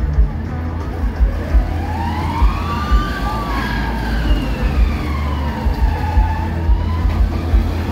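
Kamikaze fairground ride swinging, with a deep steady rumble and irregular low thumps. Over it a siren-like wail slowly rises, falls and rises again over several seconds.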